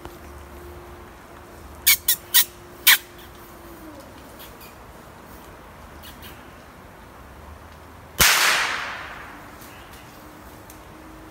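A single .22 rifle shot about eight seconds in: a sharp crack followed by an echo that trails off through the woods. Earlier, about two seconds in, come four quick, sharp, high chirps.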